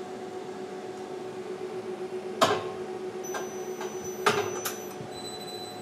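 Tormach 1100MX CNC mill humming steadily while its automatic tool changer loads a tool, with a sharp click about two and a half seconds in and two more a little past four seconds.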